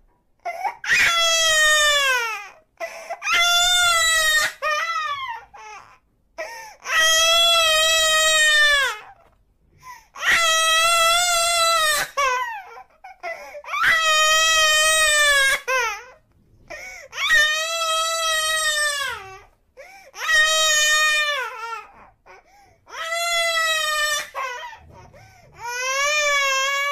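A baby crying in long wails, about nine of them with short breaks for breath, each cry high-pitched and dropping in pitch as it trails off.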